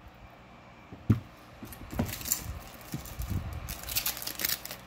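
Costume jewelry clinking and rattling as a hand digs into a glass jar of mixed jewelry and lifts out tangled strands of wooden beads. One sharp knock comes about a second in, and the clatter of small clicks grows busier in the second half.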